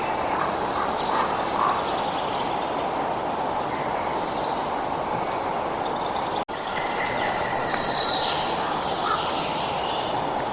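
Birds calling in short high notes, with one longer call about eight seconds in, over a steady rushing background noise. All sound cuts out for a split second about six and a half seconds in, like an edit splice.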